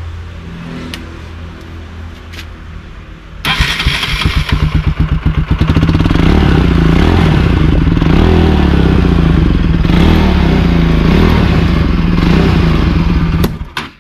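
Bajaj Pulsar NS200's single-cylinder engine running through its shortened underbelly exhaust, with the restriction inside it ground out. It runs at a moderate level at first, then about three and a half seconds in it becomes much louder, pulsing briefly before settling into a loud, steady note that drops away abruptly just before the end.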